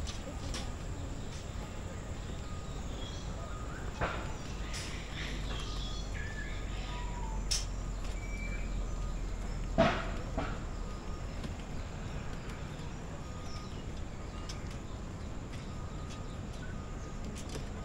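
Aviary ambience: scattered short bird calls over a steady background hum, with a few sharp clicks or knocks, the loudest about ten seconds in.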